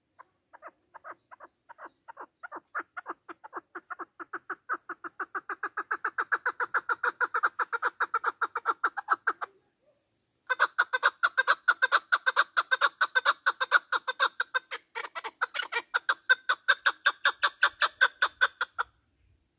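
Male chukar partridge giving its rally call: a long run of rapid, repeated clucking notes, several a second, that starts soft and builds louder. It breaks off for about a second midway, then resumes loud and stops near the end.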